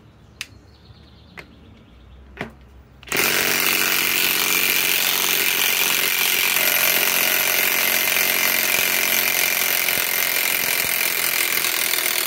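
SKIL PWR CORE 20 mid-torque cordless impact wrench hammering steadily, backing an 8-inch bolt out of a wooden stump. It starts about three seconds in, after a few light clicks, and runs without a break.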